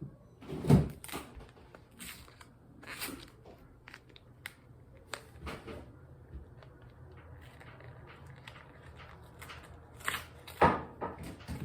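Scattered knocks and clatter of things being handled in a kitchen, with the sharpest knock about a second in and another near the end.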